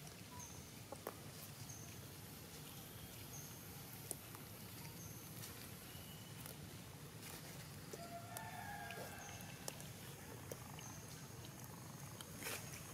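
Faint outdoor ambience: scattered small clicks and rustles of macaques foraging in dry leaves and grass, with short high chirps repeating about every second and a few brief calls about two-thirds of the way in.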